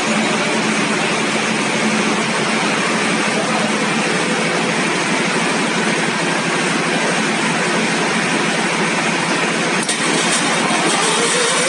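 Deutz 620 V12 engine running loud and steady, a dense mechanical noise without a clear beat. A faint rising whine comes in near the end.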